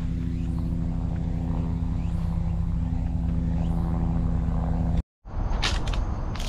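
An engine idling steadily at a constant pitch, which cuts off suddenly about five seconds in; after a short gap, a noisier stretch follows with two brief sharp knocks.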